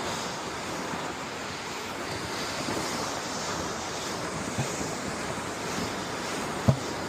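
Steady rushing wind noise on the microphone, with a dull thump about four and a half seconds in and a sharper, louder knock near the end.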